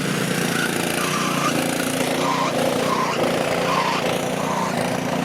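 Small gasoline engine of a snowblower running steadily at a constant speed while clearing snow.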